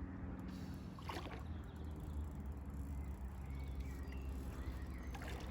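Faint steady low hum under quiet background noise, with one brief faint sound about a second in.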